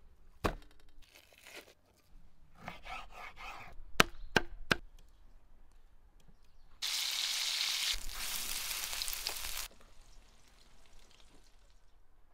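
Food-preparation sounds: wet handling of raw beef liver, then three sharp knife chops on a wooden board in quick succession, then about three seconds of loud steady hiss that starts and stops abruptly.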